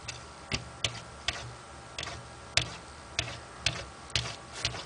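Irregular light taps and clicks, about a dozen in under five seconds: a ragdoll cat's paw and claws tapping against window glass.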